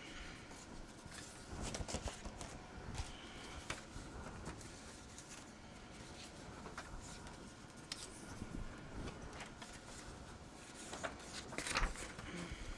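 Sheets of patterned scrapbook paper rustling and sliding against each other as they are leafed through, with scattered light taps and clicks. The handling is busiest near the start and again near the end.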